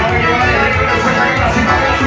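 Loud live band music with a male singer on microphone, played steadily without a break.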